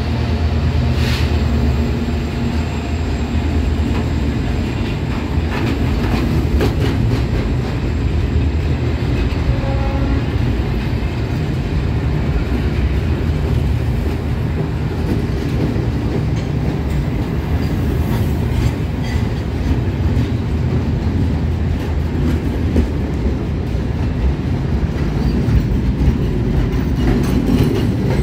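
Loaded freight wagons, grain hoppers and box cars, rolling past: a steady heavy rumble of steel wheels on the rails with scattered clacks. The EMD GT-22CW locomotive's diesel engine fades out in the first couple of seconds.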